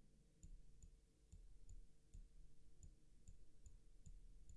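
Faint computer mouse clicks, a short click about every half second.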